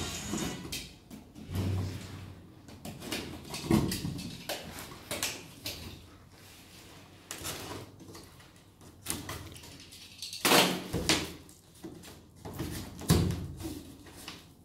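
Cardboard box being opened by hand: packing tape pulled and torn along the top seam, with the cardboard rustling, scraping and giving irregular knocks. The loudest bumps come a few seconds in and again two or three times near the end.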